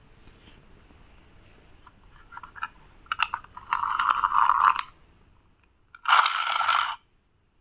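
Small plastic toy car's pull-back motor whirring as the car is pressed down and drawn back along the floor by hand, in two bursts of about a second each, after a few light clicks.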